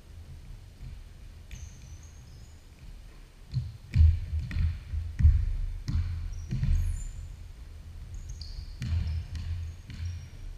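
Basketball bouncing on a hardwood gym floor, with a run of dribbles about half a second apart in the middle and a few more near the end. Short high sneaker squeaks on the hardwood come in between.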